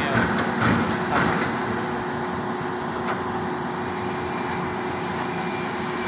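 Truck-mounted concrete pump running steadily, its engine and pump giving a constant noise with a steady hum, with a couple of short knocks about a second in.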